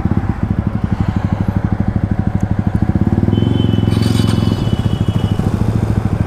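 Motorcycle engine idling with fast, even firing pulses. It grows a little louder for about a second and a half midway, with a brief thin high whine at the same time.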